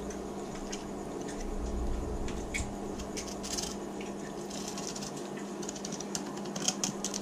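Chef's knife slicing along a ladyfish's back on a plastic cutting board: soft scraping with scattered light clicks as the blade works past the centre bone, over a steady low hum.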